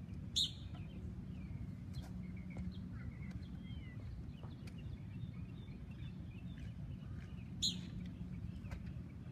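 Outdoor ambience: a steady low background hum with small birds chirping faintly, broken by two short, sharp high-pitched sounds, one about half a second in and one near the end.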